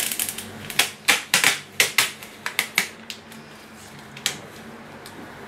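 Clear packing tape being peeled and pressed onto paper: an irregular run of sharp crackles and clicks over the first three seconds, then one more click.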